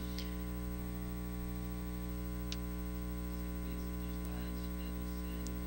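Steady electrical mains hum from the recording or sound system, a low buzz with a row of higher overtones; a couple of faint clicks, one about two and a half seconds in and one near the end.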